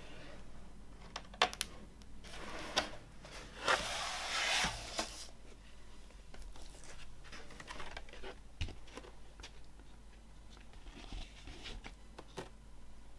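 Cardboard gatefold record sleeve being handled, shifted and slid on a wooden table. There are a few sharp taps, then a louder rubbing rustle from about two to five seconds in. After that come fainter rustles and a soft knock.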